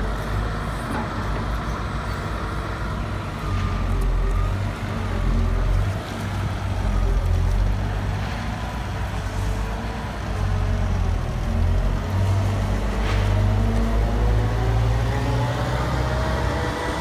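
Caterpillar M315 wheeled excavator's diesel engine running under load as the machine drives on its tyres. A whine rises and falls with the revs, climbing in pitch near the end.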